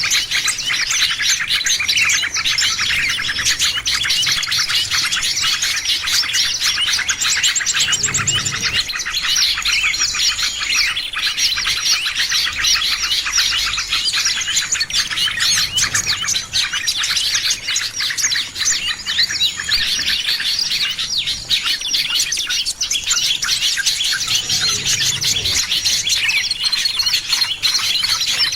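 A dense chorus of many small songbirds chirping and twittering at once, calls overlapping without a break: a bird-lure recording made to draw in small birds.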